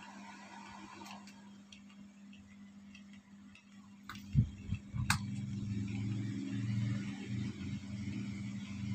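Yundai 10-inch character desk fan running with a steady motor hum, while it is being tested. A few light clicks come in the first half, then two knocks about four and five seconds in, after which the fan sounds louder and fuller.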